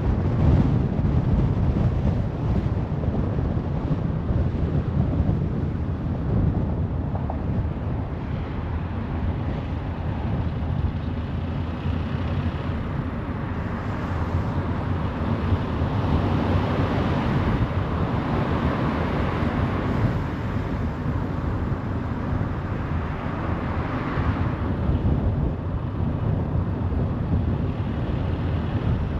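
Car driving at motorway speed, with steady tyre and road noise and a rush of wind. The hiss grows brighter and a little louder through the middle, then settles back.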